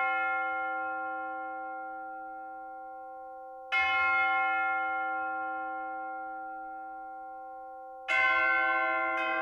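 Church bell tolling in slow single strokes about four seconds apart, each ringing out long and fading away. Near the end a second, lower bell is struck right after, as the bells begin to ring together.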